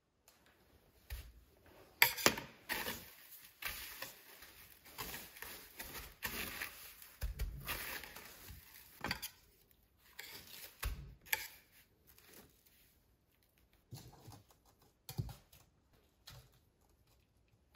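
Panko breadcrumbs crackling and rustling as an egg-coated block of mac and cheese is pressed and turned in them on a stainless steel tray by hand, with a few dull thumps. The crackling thins out near the end.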